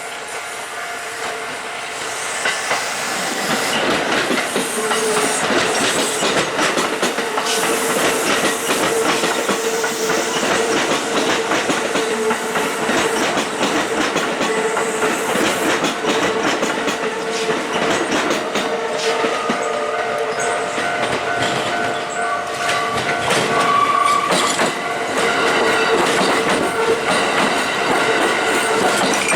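Kintetsu electric train passing close by at a level crossing, its wheels clattering over the rails, while the crossing's warning bell rings steadily. The train noise builds over the first few seconds and then stays loud.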